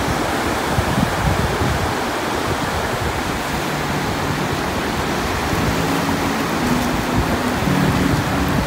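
Ocean surf breaking and washing up a flat, shallow beach: a steady rush of waves and swash.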